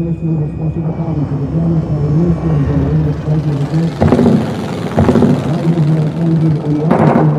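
Dark film score: a low, wavering drone with heavy drum hits about four seconds in, a second later, and again near the end.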